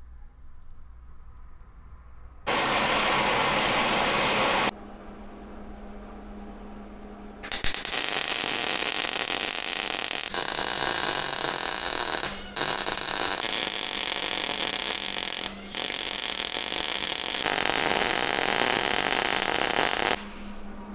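Wire-feed welder arc crackling as the uniball cup is welded onto the J-bar tube. A short burst of about two seconds comes first, then after a pause a long run of about twelve seconds that breaks off briefly twice.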